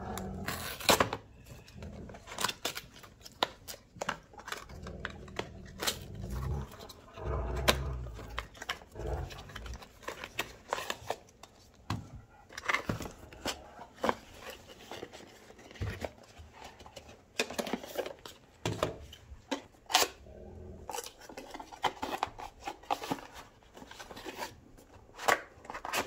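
Cardboard packaging being opened by hand: a paper label torn off, box flaps pulled and small cardboard boxes handled, with many short sharp taps and clicks and a few dull thumps.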